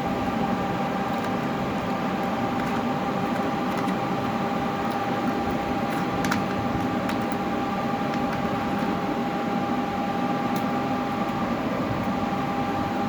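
Inverter electric fishing machine running on test in SCR mode: a steady fan-like whir with a constant high whine, and a few faint clicks about six seconds in.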